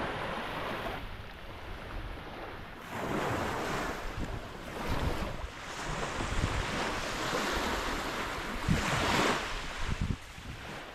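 Small lake waves washing onto a sandy shore, swelling louder now and then, with wind gusting on the microphone.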